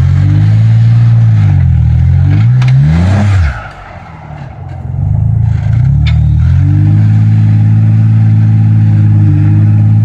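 Jeep Wrangler JK Unlimited Rubicon's engine revving hard under load as it claws up a steep rock ledge. The revs swing up and down, drop off about a third of the way in, then build again and hold high until they cut off near the end.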